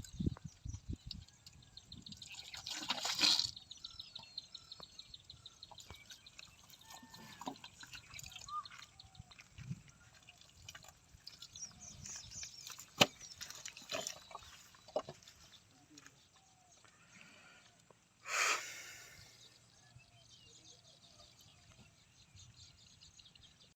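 Water splashing and dripping, with two louder bursts of splashing (about three seconds in and again near eighteen seconds) and scattered small knocks.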